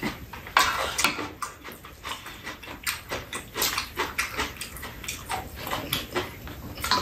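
Close-up eating sounds: wet chewing and lip-smacking, with spoons clicking against bowls now and then.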